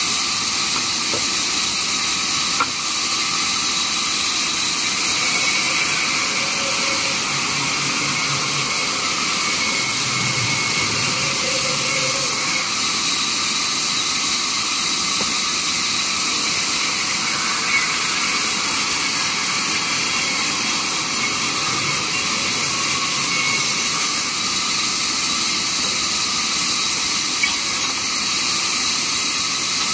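Large vertical band saw running continuously as wooden planks are fed through its blade and ripped into pallet-size pieces. It makes a steady, even, hissing noise that holds at one level throughout.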